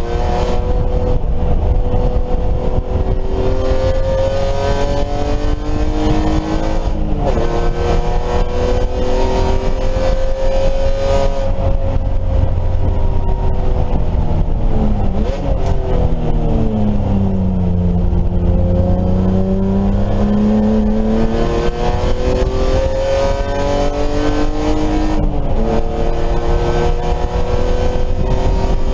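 BMW E30 race car engine running hard at speed: its pitch climbs through the revs, falls sharply at an upshift about seven seconds in and again near the end, and sinks low around the middle as the car slows for a corner before climbing again on acceleration.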